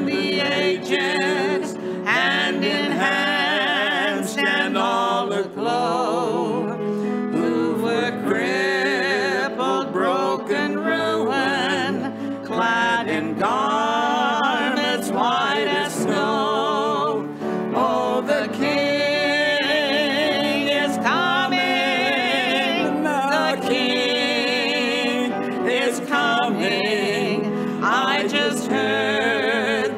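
A gospel hymn sung by several voices with strong vibrato over instrumental accompaniment, moving from a verse into the chorus near the end.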